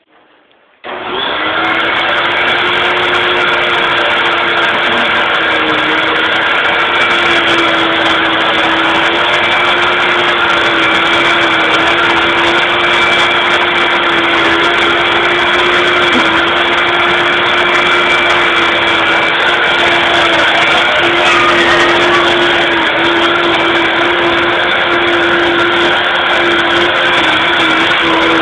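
Upright vacuum cleaner switched on about a second in, then running loud and steady at a constant pitch.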